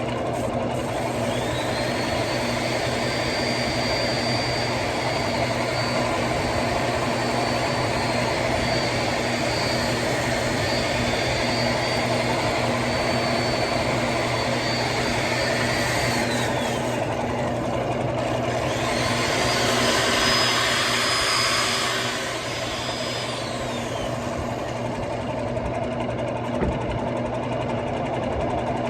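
Wood lathe running steadily while a drill-driven power sander sands a spinning eastern red cedar bowl. The sander's high whine spins up about a second in, runs, and winds down around 16 seconds, then spins up again briefly near 19 seconds with a louder rush of abrasive on wood before winding down.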